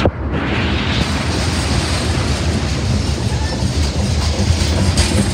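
Freight cars of a CSX manifest train rolling past close by: a loud, steady noise of steel wheels running on the rails.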